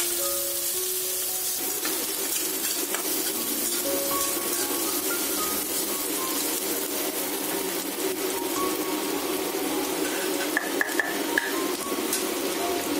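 Sliced onions sizzling in hot oil in a non-stick wok, stirred and pushed around with a steel spatula, with a few sharp clinks of the spatula against the pan about ten to eleven seconds in. Light background music with short plucked-sounding notes plays along.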